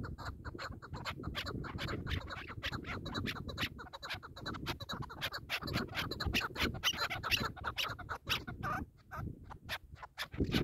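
Chukar partridges calling: a fast run of harsh clucking notes, several a second, thinning out near the end.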